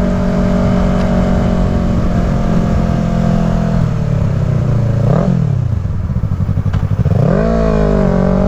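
Yamaha R3's parallel-twin engine through an M4 slip-on exhaust. It holds a steady cruise, then drops off throttle, gives a quick throttle blip about five seconds in, runs at low revs, and revs back up near the end.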